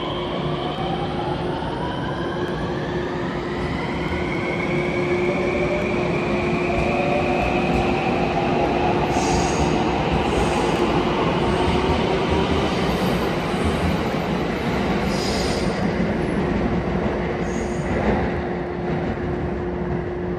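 521 series electric train pulling in along the platform: its motor whine slides in pitch over the rumble of wheels on rail. There are brief high squeals midway as it slows, and a single knock near the end.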